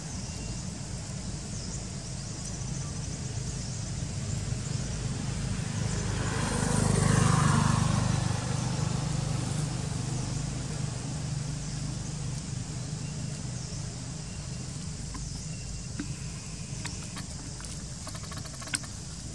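A motor vehicle passes by on the road, its engine and tyre noise rising to a peak about seven seconds in and then slowly fading. A couple of small sharp clicks come near the end.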